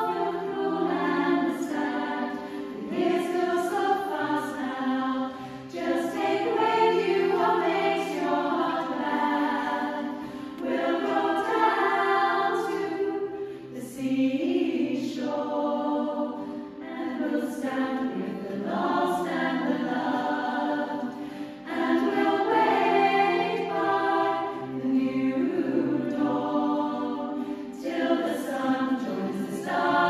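A small, mostly female choir singing a folk Christmas song in harmony, in phrases of a few seconds with brief breaks for breath between them.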